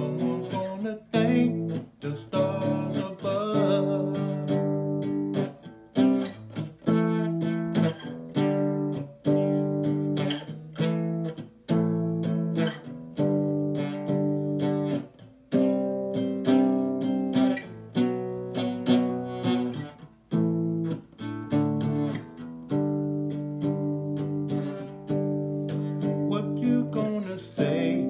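Acoustic guitar played solo, chords strummed and picked about once a second, each left to ring briefly before the next.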